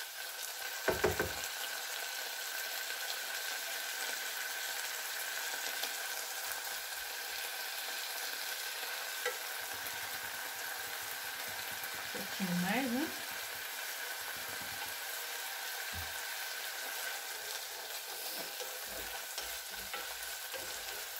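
Ground beef sizzling as it finishes sautéing in a small non-stick saucepan, with a wooden spoon stirring and scraping through it. A couple of sharp knocks about a second in.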